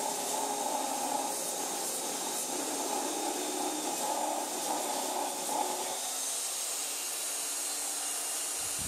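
Makita belt sander running with its abrasive belt pressed into the edge of a 2x4, grinding a slot into the wood; a steady hiss of sanding that eases a little about six seconds in.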